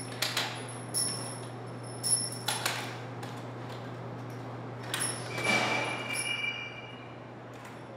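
A series of sharp metallic clanks, each ringing briefly at a high pitch, with a longer ringing clatter of metal about five to six seconds in, over a steady low hum.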